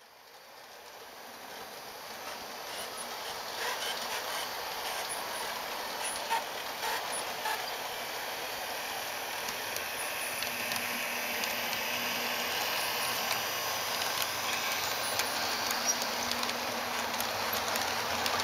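HO-scale model train running past, Southern Pacific GP9 and SD7 diesel models pulling mail and express cars: a steady rattle of small metal wheels on the track with scattered light clicks. The sound fades in over the first few seconds, then holds.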